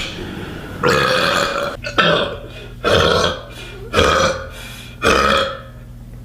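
A woman burping over and over: five loud burps about a second apart.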